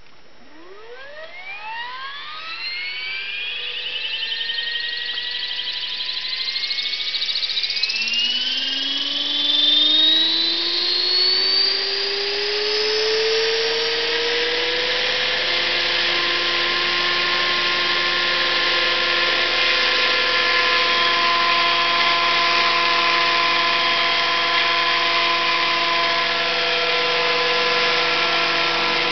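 Electric RC helicopter spooling up: the motor and gear whine rises in pitch in two stages over roughly the first fourteen seconds as the rotors come up to speed, then holds at a steady pitch.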